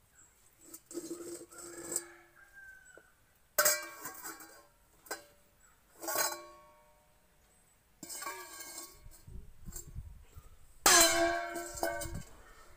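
Stainless steel bowls clanging and clinking against each other and the floor as a toddler handles them: about five metallic clangs, each ringing on briefly, the loudest near the end.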